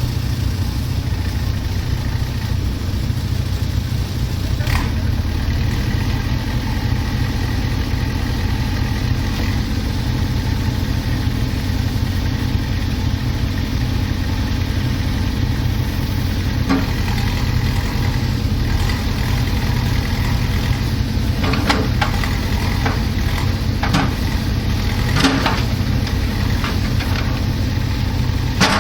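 Heavy machine's engine running steadily at a low, even pitch, with a few short knocks or clanks in the second half.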